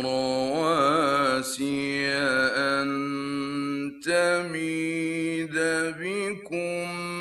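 Male voice reciting the Quran in a melodic, drawn-out style: long held notes with wavering ornaments, a brief break about four seconds in, then a new held phrase.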